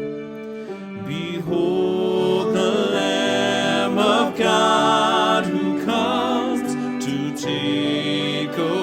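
Worship music: sustained sung notes held with vibrato over instrumental backing, with no words made out.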